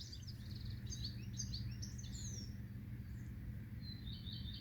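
Small songbirds chirping and twittering in quick bursts, busiest in the first couple of seconds and again near the end, over a steady low rumble.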